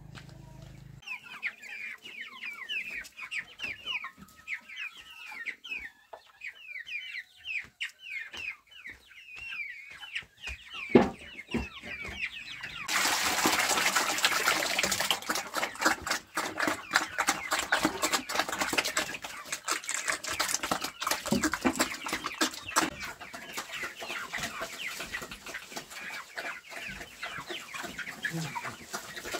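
Chickens calling in a quick run of short, high, falling peeps and clucks. A little under halfway through, a dense rustling, crackling noise full of sharp clicks comes in suddenly and carries on under the calls.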